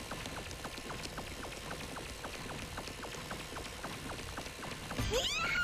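A fast, even ticking, about five ticks a second, over a steady background hiss; near the end a voice starts crying out with a rising, then held pitch.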